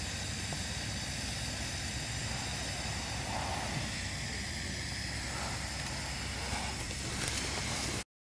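Snow Peak GigaPower canister gas stove burning, its burner giving a steady hiss over a low rumble; the sound cuts off suddenly about eight seconds in.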